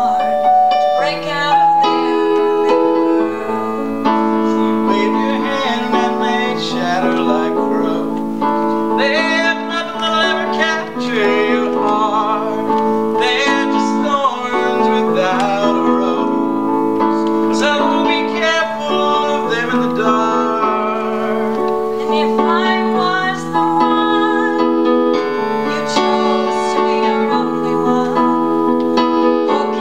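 Piano playing held chords with a melody line over it that wavers in pitch.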